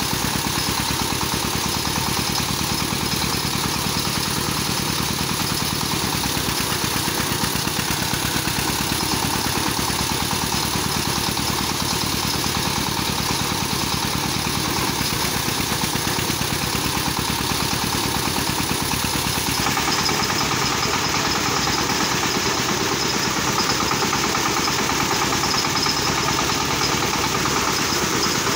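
Single-cylinder diesel engine running a paddy thresher through threshing, a steady continuous machine noise that gets slightly louder about twenty seconds in.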